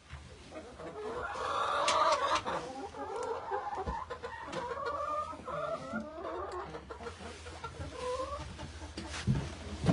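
A flock of chickens clucking and murmuring in many short, overlapping calls as they settle on the roost for the night.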